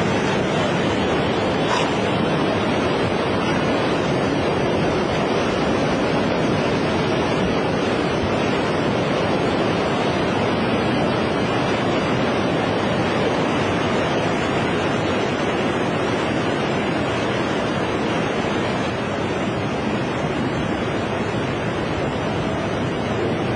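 Tsunami floodwater surging and rushing in a steady, loud wash of noise, with wind on the microphone.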